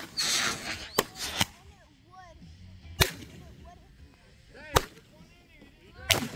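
Consumer aerial fireworks firing from a tube on the ground: a sharp bang with a short hiss as the shot launches, then several more sharp reports spaced one to two seconds apart as shells burst overhead.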